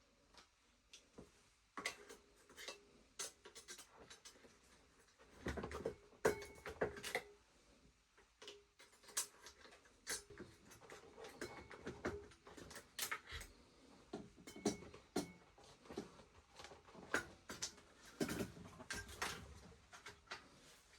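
Scattered clicks, taps and light metallic knocks, some with a brief ring, of hands and tools working at a motorcycle's carburettor bank as it is pried loose for removal.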